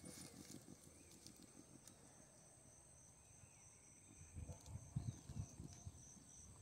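Near silence with a faint, steady, high insect trill. Under it are soft low thumps and rustles, a few stronger ones about five seconds in.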